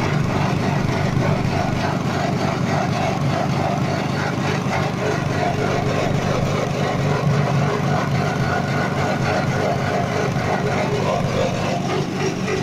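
A rice-husk grinding machine driven by a small 6.5 hp petrol engine, running steadily without a break.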